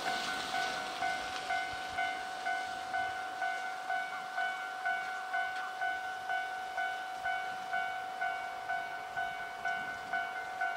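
Japanese level-crossing warning bell ringing: an electronic two-tone 'kan-kan' chime repeating steadily at a little over two strokes a second, the signal that a train is approaching and the crossing is closed.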